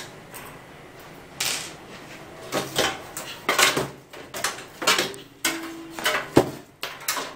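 Metal clatter and knocks as an ATX power supply unit is worked loose and lifted out of a steel PC case, its casing and cables bumping against the chassis: about eight short knocks, the loudest about six and a half seconds in.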